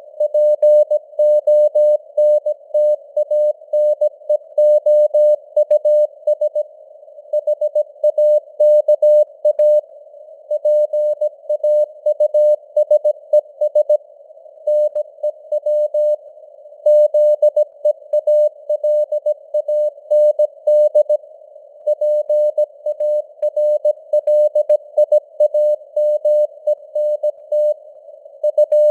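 Morse code (CW) sent at 17 words per minute as a keyed tone of about 600 Hz, dots and dashes with short pauses between words. Underneath is a narrow band of hiss around the tone, simulated radio-receiver noise, and the signal strength rises and falls with fading (QSB).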